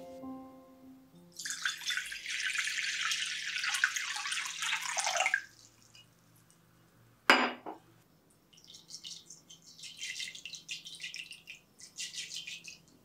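Water poured into a glass mixing bowl for about four seconds, then a single sharp clink of glass about seven seconds in. Near the end, dry granules are poured from a small glass dish into the water in the bowl in several short rattling runs.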